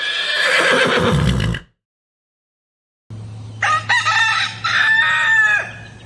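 A horse whinnies for about a second and a half, its pitch falling and ending low. After a pause a rooster crows a full cock-a-doodle-doo, over a low steady hum.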